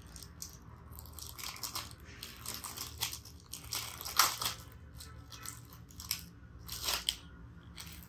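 Clear plastic bag crinkling and rustling in irregular crackles as a small device is pulled out of it by hand.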